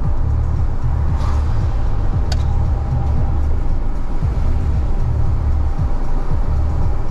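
Car driving on a wet highway heard from inside the cabin: a loud, steady low rumble of road and engine noise with a hiss of tyres on the wet surface. A single sharp click about two seconds in.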